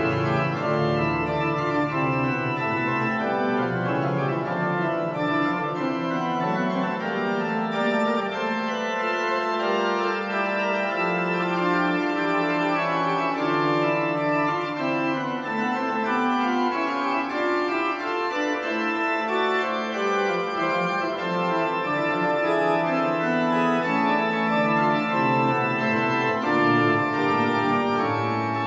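Reil choir pipe organ playing a toccata-style chorale variation: several voices sounding together without a break, with a lower line that steps slowly down and then back up.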